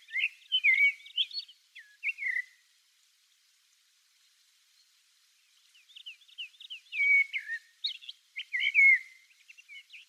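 Eurasian blackbird singing: two short phrases of quick, warbled, sliding notes, the first about two and a half seconds long and the second starting about six seconds in, with a pause between them.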